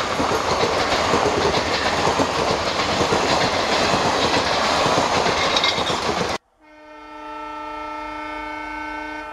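Passenger coaches of a train passing at speed, a loud steady rush of wheel and rail noise. It cuts off suddenly about six seconds in, and an ALCO diesel locomotive's multi-tone horn sounds one held chord for the last three seconds.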